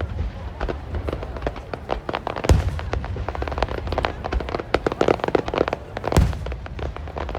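Fireworks display: a dense, continuous crackling of many small bursts, with two heavy booms of large shells about two and a half and six seconds in.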